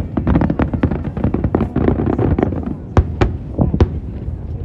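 Aerial fireworks display going off: a dense run of crackling bangs through the first couple of seconds, then a few single sharp bangs about three to four seconds in.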